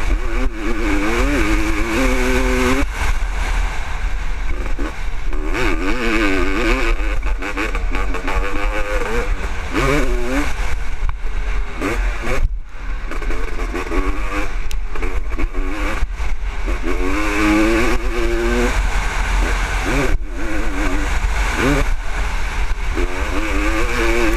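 A 1996 Honda CR500, a 500cc single-cylinder two-stroke motocross bike, racing with a helmet-mounted microphone. The engine revs rise and fall over and over as the throttle opens and shuts through the corners and straights. Heavy wind rumble runs underneath throughout.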